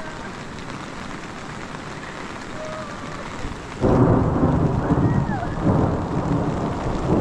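Steady rain, then about halfway through a sudden loud crack and rumble of thunder that keeps rolling on under the rain.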